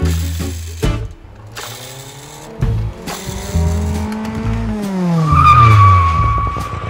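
Background music, joined by a car sound effect: a falling engine-like tone, then a loud, steady tire-screech squeal in the last two seconds.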